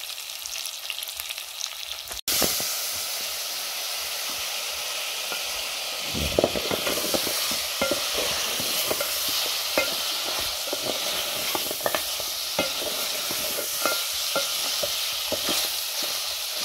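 Smoked beef sizzling as it fries in an aluminium pot, with a wooden spoon scraping and knocking against the pot as it is stirred. The sizzle breaks off for an instant about two seconds in, then carries on louder.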